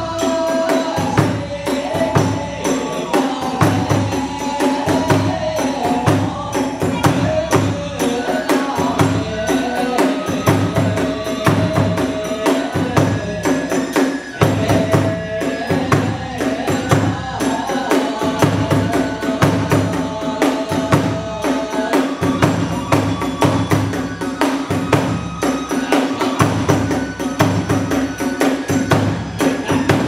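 Hiroshima kagura festival music: a transverse bamboo flute playing a wavering melody with long held notes, over regular beats of large and small drums and the continuous clash of small hand cymbals.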